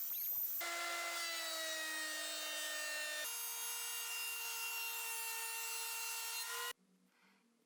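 Power saw cutting 2x4 softwood: a steady motor whine that sags slightly in pitch under load, jumps abruptly to a higher steady whine about three seconds in, and cuts off sharply near the end.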